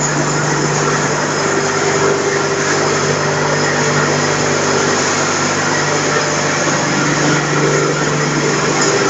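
FİMAK spice crushing machine running steadily under load, a constant motor hum over the dense rushing noise of the grinding, with ground spice pouring out of its chute.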